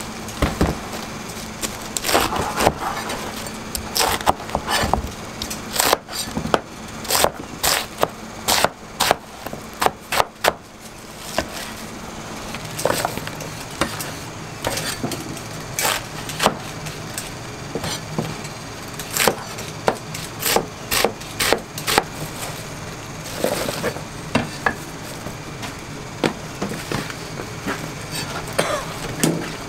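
Kitchen utensils knocking on a wooden board and cookware in quick, irregular runs of sharp taps, over a steady low hum.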